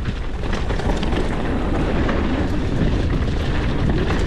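Mountain bike riding fast down a rough, rutted dirt and rock trail: wind rushing over the microphone, tyres rumbling over the ground, and the bike rattling and knocking over bumps.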